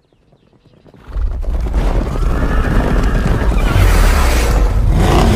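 Channel-intro soundtrack: music that comes in suddenly about a second in with a heavy deep bass and stays loud, layered with dramatic sound effects.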